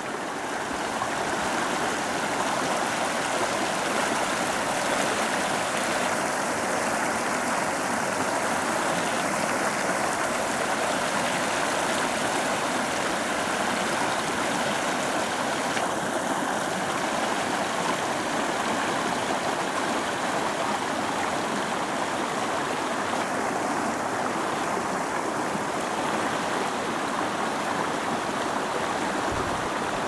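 Shallow rocky river rushing over stones and through riffles: a steady, even rush of flowing water.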